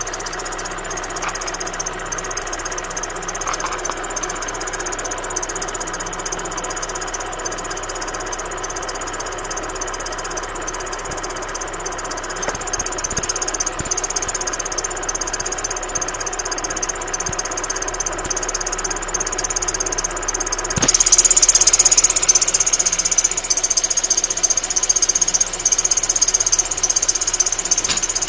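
Opel Frontera's X22XE four-cylinder petrol engine running with its accessory drive belt whistling in a steady high tone. The whistle comes from the belt wandering on the tensioner pulley because the crankshaft pulley wobbles out of true. The sound gets noticeably louder about three quarters of the way in.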